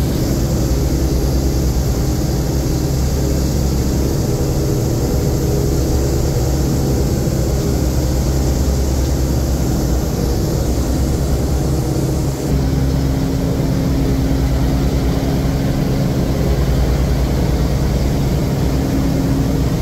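The four Wright R-3350 radial engines of the B-29 Superfortress 'Doc' droning at climb power, heard inside the cabin. The drone is loud and steady, shifting to a slightly different tone about twelve seconds in.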